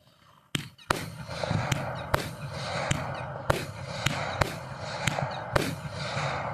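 Fireworks going off: after a brief quiet, a rapid run of sharp bangs begins about half a second in, with continuous crackling between the reports.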